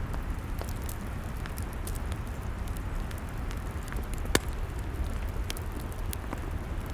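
Log fire crackling: a steady hiss and low rumble with scattered sharp pops, one louder pop about four seconds in.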